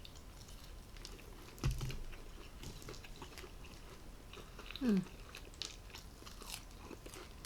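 Close-miked chewing and biting of food, with small crunches. There is a low thump about a second and a half in, and a short falling sound, like a hum, near the five-second mark.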